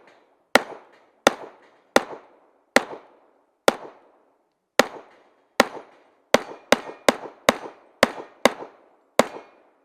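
A .40-calibre STI 2011 competition pistol firing a string of about fourteen shots, each sharp crack followed by a short echo. The first few come steadily about three-quarters of a second apart, then a longer pause, then a quicker run of shots near the end.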